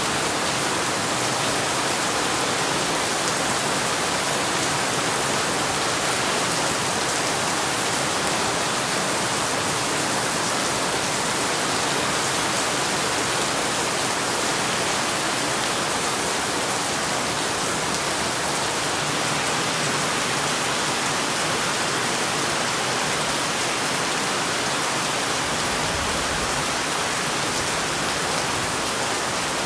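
Heavy rain from a tropical storm falling steadily, an even, unbroken hiss of rain on surfaces.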